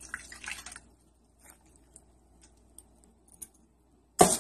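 Vinegar poured from a mug over a raw turkey in a roasting pan, splashing for just under a second, then a few faint drips. A sudden loud knock comes near the end.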